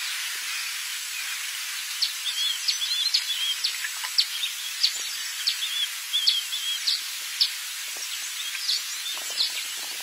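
Outdoor bush ambience: a steady high hiss with many short bird chirps and twittering calls from about two seconds in.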